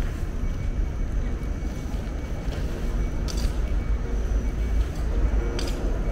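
A low steady rumble of outdoor background noise, with two short crinkles of a plastic rubbish bag being handled as litter is gathered, about three seconds in and again near the end.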